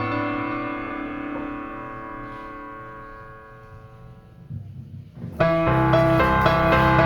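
Background piano music: a held chord slowly fades away for about five seconds, then a louder new passage begins.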